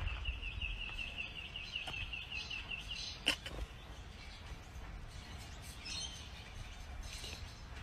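Outdoor ambience: a small bird chirping rapidly, about five chirps a second, for roughly the first three seconds, then a single sharp click, over a low rumble.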